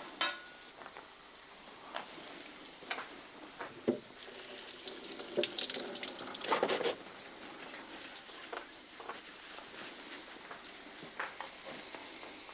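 Diced onion, pepper and tomato frying in a pan: a steady sizzle with scattered clicks of utensils, swelling louder for about two seconds in the middle.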